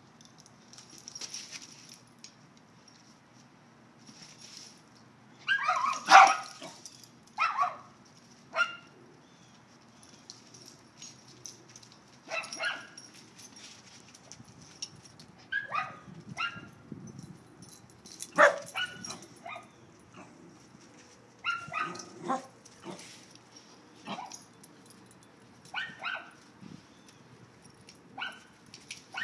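Dogs barking and yipping as they play-wrestle, in short scattered bursts. The loudest cluster comes about six seconds in.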